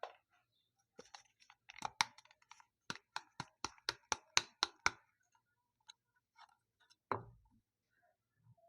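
Sharp clicks or taps from objects being handled, with a few scattered clicks followed by an even run of about nine clicks at roughly four a second. A single dull thump comes near the end.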